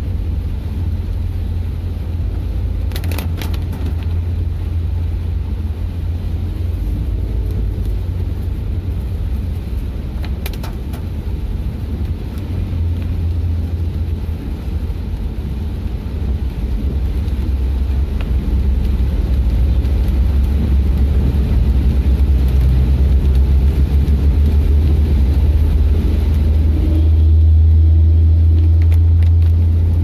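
Low, steady rumble of a car's engine and tyres heard from inside the cabin, driving on a wet road in rain, with a faint hiss over it. The drone swells in the second half and is loudest near the end. Two brief clicks come a few seconds in and about ten seconds in.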